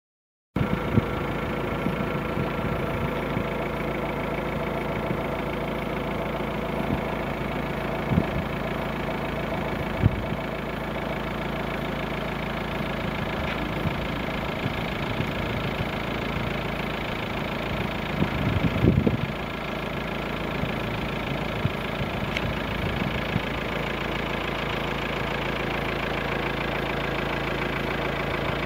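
A car engine running steadily. A few short knocks come through about a second in and around eight and ten seconds, and a rougher stretch comes near nineteen seconds.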